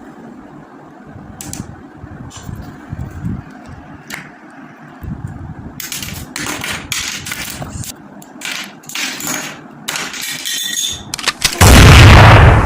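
Plastic Lego pieces clicking and rattling as they are handled, with many sharp clicks in quick succession. Near the end comes a loud rumbling burst of noise lasting about a second.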